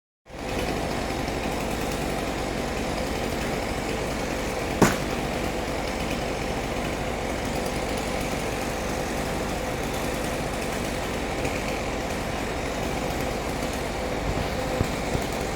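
An engine running steadily at idle, with one sharp click about five seconds in.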